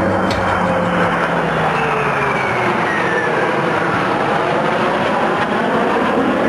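Three twin-engine F/A-18 Hornet fighter jets flying past in formation: a loud, steady jet roar with a whine that falls slowly in pitch as they pass.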